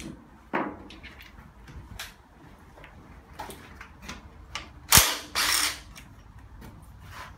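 Clicks and clatter of hand tools and engine parts being handled during an engine teardown. About five seconds in there is a sharp knock, followed by a short noisy burst.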